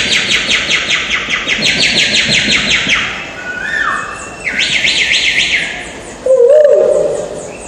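A man imitating a courtyard of chirping birds with his mouth: two long, rapid high trills, a short falling whistle between them, then a lower, louder warbling call near the end.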